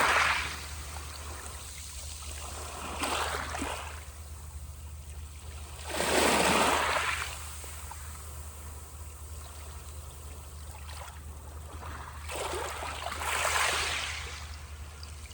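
Sea waves breaking and washing up the shore, one surge every few seconds over a steady hiss of water. The biggest comes about six seconds in.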